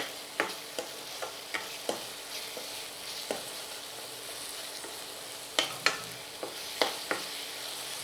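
Masala paste frying in oil in a karai, with a steady sizzle, while a spoon stirs it and clicks against the pan at irregular moments, most busily in two spells.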